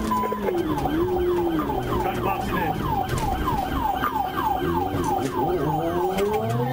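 Police cruiser siren on a fast yelp, sweeping up and down about three to four times a second, over the patrol car's running engine; a lower tone rises near the end.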